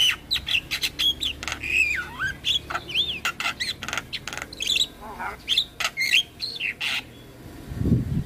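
Javan myna singing a fast, varied chatter of sharp clicks, squawks and short whistles, with a falling whistle about two seconds in and a rising-then-falling one about a second later. A brief low sound comes near the end.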